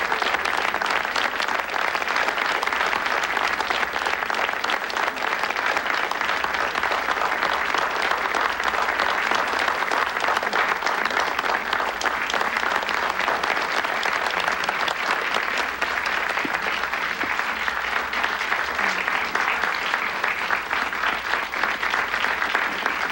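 Audience applauding steadily: many people clapping their hands at once.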